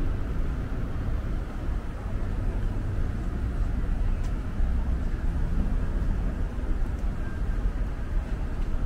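Steady low rumble of urban background noise, with no distinct events standing out.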